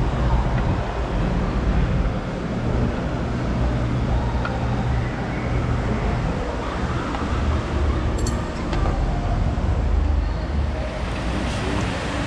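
Steady low rumble of vehicle or road traffic noise, with a few faint short clicks about eight seconds in.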